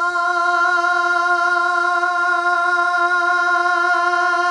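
Male naat reciter holding one long sung note at a steady pitch without a break, unaccompanied and amplified through a stage microphone.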